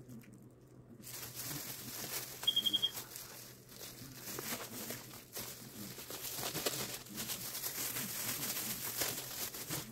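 Plastic bag crinkling faintly as it is handled, with a quick run of about five short high beeps near three seconds in.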